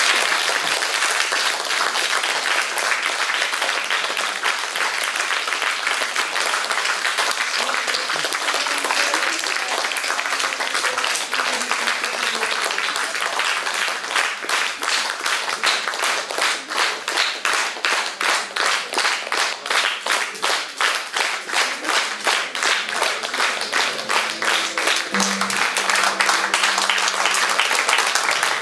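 Audience applauding. About halfway through, the clapping falls into a steady rhythmic clap in unison, about two to three claps a second.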